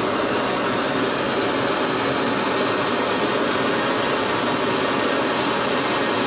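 Gas torch burner running with a steady hiss of the flame, heating a steel test piece to red heat for quenching.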